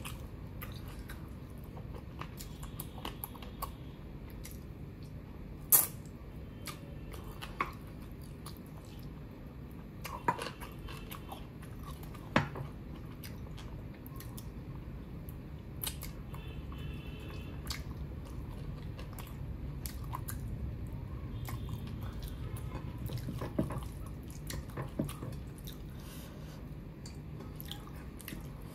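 Close-miked chewing and wet mouth sounds of a person eating rice and chicken curry by hand. Sharp clicks are scattered through, the loudest about six seconds in and again about twelve seconds in, over a steady low hum.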